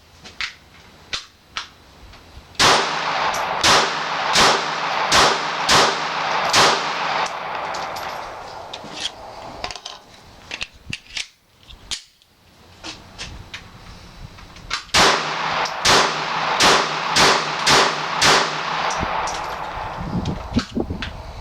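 Glock 42 .380 pistol firing PMC full-metal-jacket rounds in two quick strings of about six shots each, roughly one shot every 0.7 s. The first string starts about 3 s in and the second about 15 s in, with small clicks in between.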